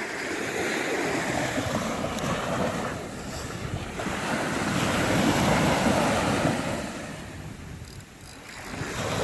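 Surf washing up a sandy beach, swelling twice and falling back, with wind on the microphone.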